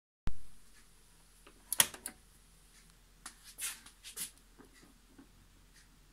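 Mechanical clicks from the front-panel push-buttons and controls of a Lenco SL-301 record-player unit being operated by hand: a sharp click at the very start that fades quickly, a few crisp clicks about two seconds in, then softer clicking and handling noise about a second later. No music is playing yet.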